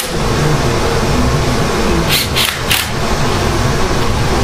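Cordless drill with a long socket extension running a bolt on a Ford V8's intake, in three short trigger bursts about two seconds in. A steady low rumble runs underneath.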